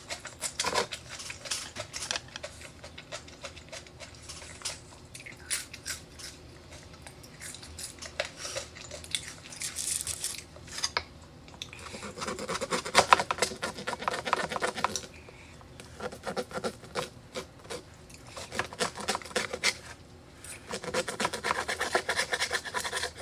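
Close-miked eating sounds: chewing okra with small wet, crunchy clicks, then a knife sawing through steak and scraping on the wooden cutting board in two spells, about halfway through and again near the end.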